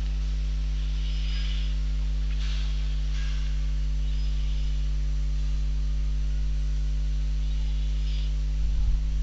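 Steady electrical mains hum, a low buzz with evenly spaced overtones, with a few faint soft hissy sounds and some low bumps near the end.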